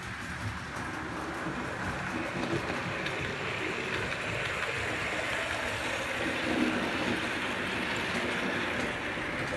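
Hornby OO gauge Terrier model locomotive running past with its coaches, its motor whirring and its wheels rattling on the track. The sound grows louder about two seconds in as the train comes close.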